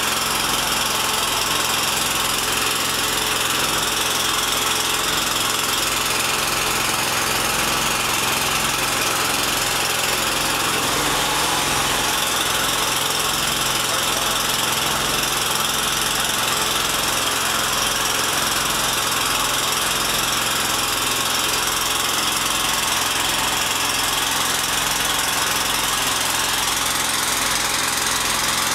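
An engine idling steadily, a constant drone with an even low throb.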